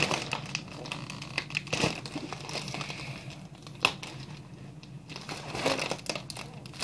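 A helium balloon crinkling and rustling in someone's hands as they fiddle with it, trying to open it. There are sharper crackles about two and four seconds in.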